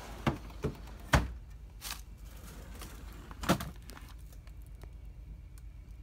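Plastic freezer drawers of an LG refrigerator being slid and handled, making about five sharp knocks and clunks; the loudest comes about a second in and another about three and a half seconds in.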